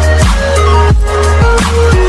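Background electronic dance music with heavy sustained bass and a steady drum beat.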